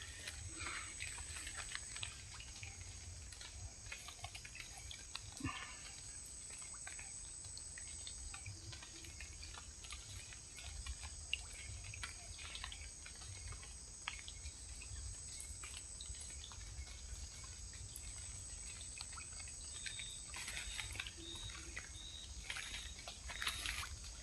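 Quiet outdoor ambience with a steady high-pitched insect drone, scattered small clicks and handling noises, and a low rumble. Near the end a short high chirp repeats about twice a second.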